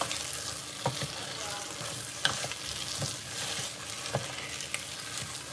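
Chopped onions and tomato paste sizzling in a pot as a wooden spoon stirs them, with a few light knocks of the spoon against the pot. The onions are being softened over high heat in the paste.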